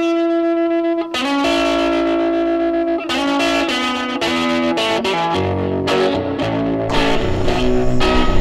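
Background music: ringing electric guitar notes with effects, joined by bass about halfway through and building in loudness toward the end.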